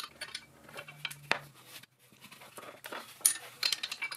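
A 17 mm open-end spanner clinking on the steel nuts of the lathe's motor mounting studs as they are tightened: scattered small metallic clicks and ticks, one sharp click about a second in and a cluster near the end.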